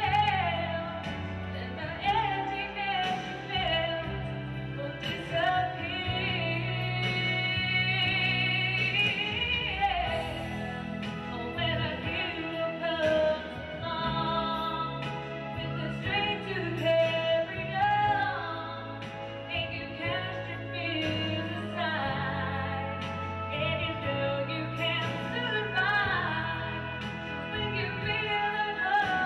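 A woman singing a song into a microphone over an instrumental accompaniment with a steady bass line.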